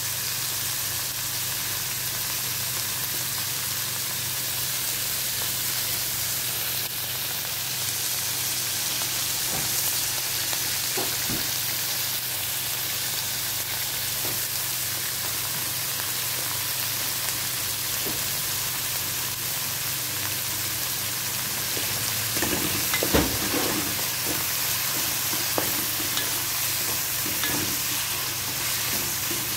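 Chicken and diced vegetables sizzling steadily in oil in a metal pan. A wooden spatula scrapes and knocks against the pan, mostly in the last several seconds, with one sharper knock among them.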